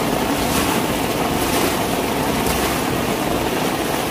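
Heavy rain pouring down and a stream of overflow water gushing and splashing onto the tiled rooftop floor, a steady rushing noise.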